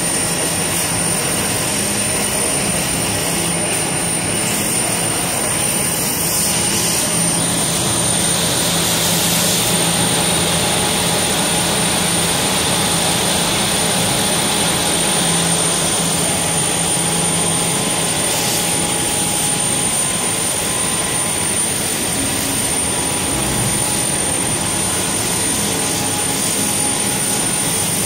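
Antipilling cleaning and reversing machine for wet tubular fabric running: a loud, steady mechanical rush of motors and air, with a constant high whine above it.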